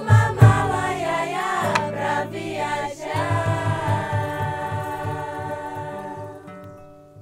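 A choir singing a traditional rural folk song (cantiga) of the Jequitinhonha Valley. The song closes on a held chord that dies away over the last few seconds.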